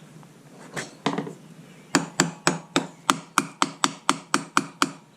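A couple of knocks, then a steady run of about a dozen sharp taps, roughly four a second, from handling a motorbike pull-start recoil starter that is not working after its spring repair.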